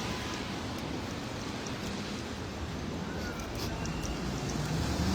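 Rainy city street ambience: a steady hiss of rain and traffic on wet roads, swelling a little near the end as a vehicle comes closer.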